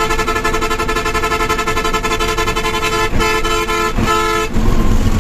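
Bus horn blaring a steady chord of several tones with a rapid flutter, switching to a different chord about three seconds in and cutting off about a second later, leaving engine and road rumble.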